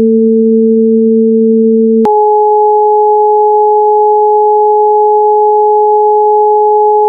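Steady synthesized sine tones of a Rife-frequency sound-therapy track, two tones sounding together. About two seconds in, the pair jumps abruptly to a higher pair, which holds steady.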